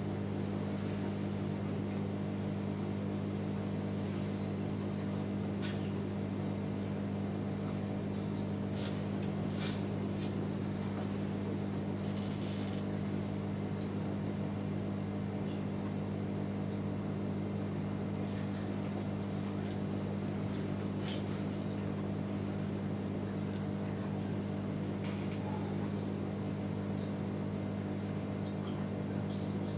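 Steady low mechanical hum of room equipment, even and unbroken, with scattered faint clicks and taps of a laptop being operated.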